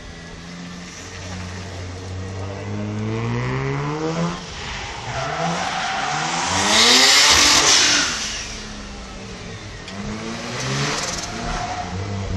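Mazda RX-7's rotary engine revving up in repeated rising sweeps as the car drifts, with a loud burst of tyre screech about seven seconds in, the loudest part, followed by more revving.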